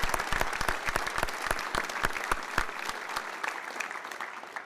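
Audience applauding, the clapping thinning and fading away near the end.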